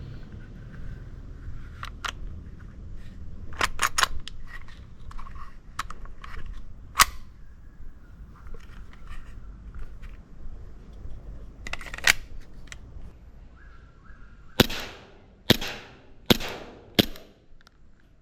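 A gas-powered Glock 19–style gel blaster pistol: scattered sharp clicks and snaps of its metal parts being handled, then four sharp shots in quick succession near the end.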